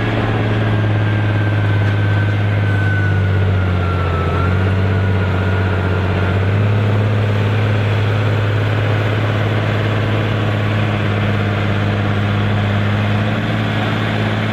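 Massey Ferguson 6499 tractor's diesel engine running hard and steady under heavy load while it drags the weight sled, with a high whine that sinks slightly in pitch over the first four seconds.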